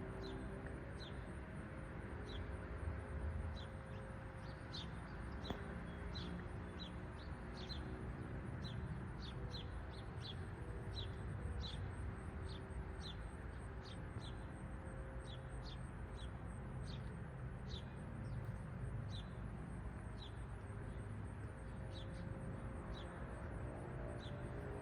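Northern cardinal calling: a long, even series of short, sharp, down-slurred notes, about one or two a second.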